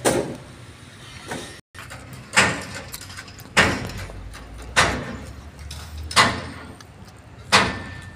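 A series of sharp knocks, about one every second and a quarter, each ringing briefly, with a brief audio dropout between the first two.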